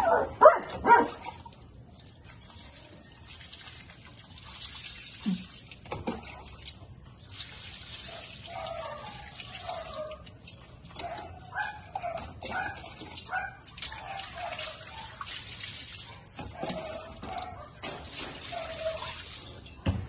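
Small dog whining in short cries that rise and fall in pitch while being bathed, over water from a tap running in stretches. A few sharp yelps or barks in the first second are the loudest part.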